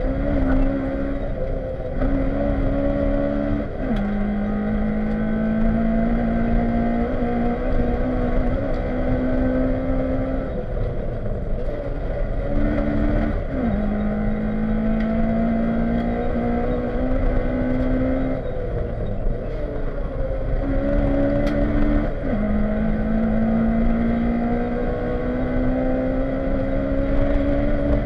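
Honda Civic rally car engine heard from inside the cabin, pulling hard through the gears on a stage. Its note climbs steadily and falls sharply at upshifts about four seconds in, near the middle, and about two-thirds through, with a brief lift and pick-up just before the middle.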